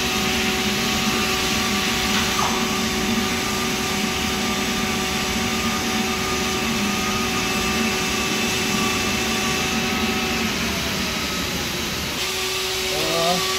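Steady running hum and whir of fabrication-shop machinery: an even hiss with several constant hum tones, one of which drops out about three-quarters of the way through.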